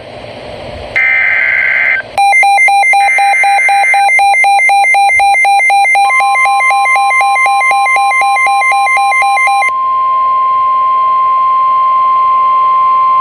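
A new weather radio alert starts with its SAME header: screeching digital data bursts about a second apart. Then comes an alert receiver's rapid pulsing beep alarm, which stops near ten seconds. Overlapping it from about six seconds in, the long steady single-pitch warning alarm tone begins, announcing a severe thunderstorm warning.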